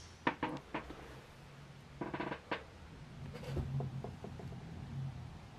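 Handling noise from a handheld camera: a few soft clicks near the start, a brief rustle a couple of seconds in, then a faint low rumble.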